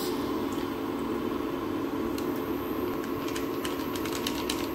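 Induction cooktop running on its high deep-fry setting to heat a bowl of milk: a steady hum, with light irregular ticks from about two seconds in.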